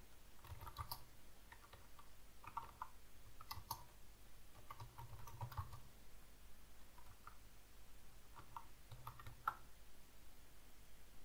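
Faint typing on a computer keyboard: irregular keystrokes in small clusters with short pauses between them.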